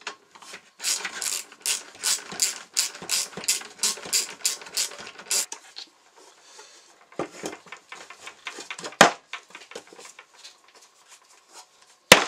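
Small metal screw being turned by hand into the plastic housing of a Truma Therme water heater tank, giving rapid, even clicks at about four a second that stop about five and a half seconds in. Scattered knocks from the plastic tank being handled follow, the loudest about nine seconds in.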